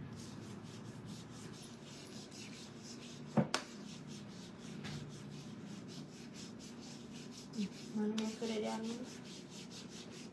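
Hands rubbing body lotion into the skin of the arms, a soft steady rubbing. A single sharp click comes about three and a half seconds in, and a faint voice is briefly heard near eight seconds.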